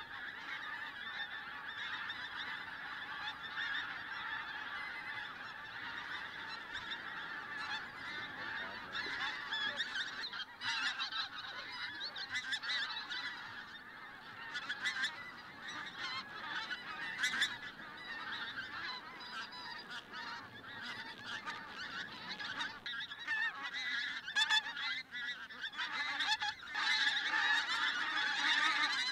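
A flock of pink-footed geese calling in flight overhead: a continuous chorus of overlapping high-pitched honks. It grows louder over the last few seconds as more birds come over.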